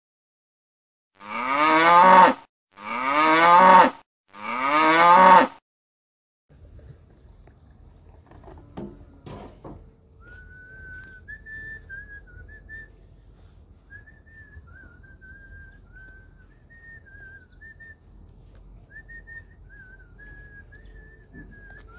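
A cow mooing three times in a row, each moo loud and about a second long. Afterwards, faint whistling wavers on, with a few clicks in between.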